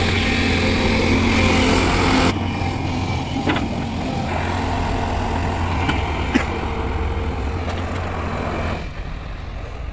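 Diesel engine of a Hyundai wheeled excavator running steadily under load as it digs and moves sandy earth, with a few short sharp knocks. The drone drops abruptly about two seconds in and again near the end.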